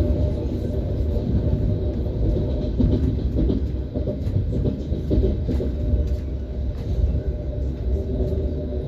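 Siemens Desiro ES1P Lastochka electric train running at speed: a steady rumble of wheels on the rails, with clusters of wheel knocks over the rail joints about three and five seconds in.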